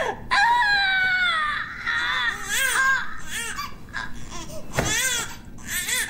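Newborn baby crying: a long wail falling in pitch, then a run of short wavering cries and another loud cry near the end.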